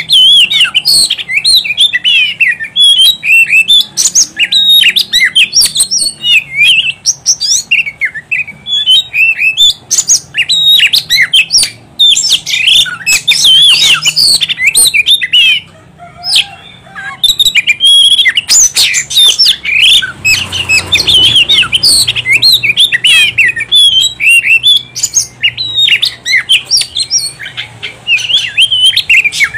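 Oriental magpie-robin singing in full voice: a rapid, nearly unbroken run of high, varied chirps and whistles, with one short pause about halfway through.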